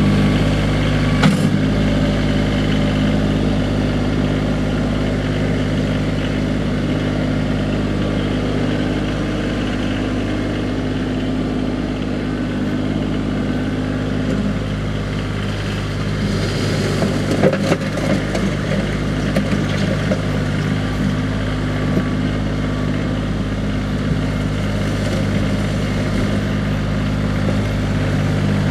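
Kioti CX2510 compact tractor's three-cylinder diesel engine running steadily at a constant speed while the tractor drives and works its loader in gravel. A sharp knock about a second in and a brief stretch of clatter about two-thirds of the way through.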